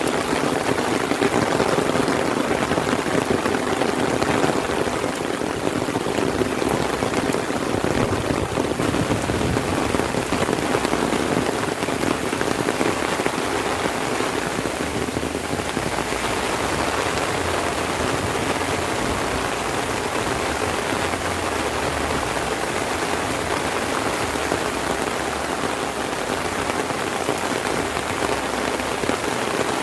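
Heavy rain falling in a steady downpour, an even, dense hiss with no letup.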